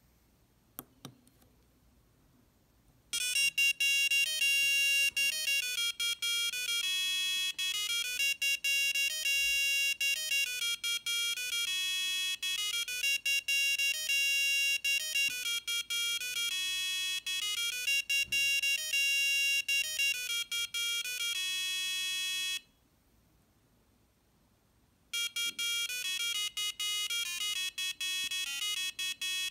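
Simple electronic tune beeped out by the small onboard buzzer of an RGBduino, an Arduino-compatible board, after a light click near the start. The notes are thin and buzzy, with a few seconds' break near the end before the tune starts over.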